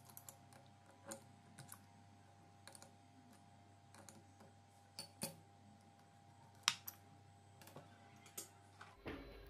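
A dozen or so light, irregular clicks and taps over a faint steady hum, the sharpest click about two-thirds of the way through.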